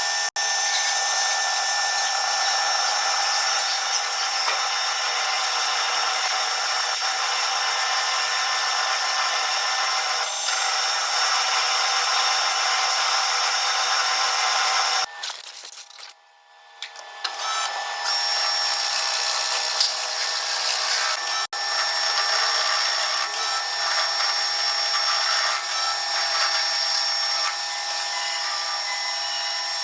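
Metal lathe turning a spacer: a steady machining noise with several high, steady whines. It drops away briefly about halfway through, then picks up again at a slightly different pitch.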